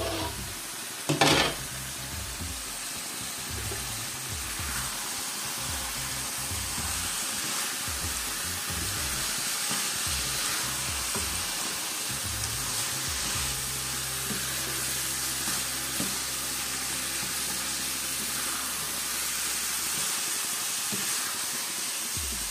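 Grated carrot halwa sizzling in a nonstick wok while a slotted spatula stirs and scrapes through it, with a sharp clatter about a second in as the glass lid is set aside.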